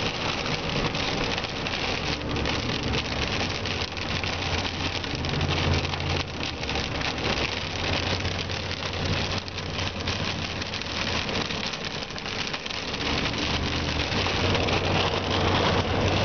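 Rain pattering on a car's windshield and body with many small drop clicks, over the low steady rumble of the car driving.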